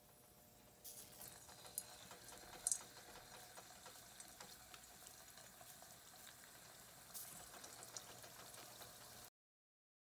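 Vegetable Manchurian balls deep-frying in hot oil: a faint sizzle that starts about a second in as a ball goes into the oil, with a few sharp crackles, then cuts off suddenly near the end.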